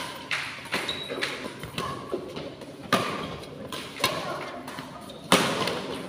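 Badminton rackets striking a shuttlecock in a singles rally: a string of sharp hits about a second apart, the loudest near the end, echoing in a large hall.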